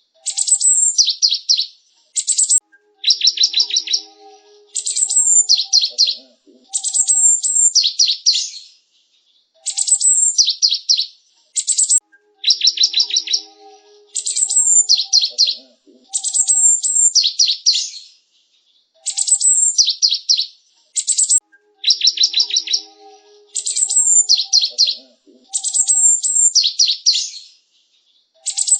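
Cinereous tit (gelatik batu) singing: short phrases of rapid, high chirping notes with brief gaps between them, the same sequence of phrases repeating about every ten seconds.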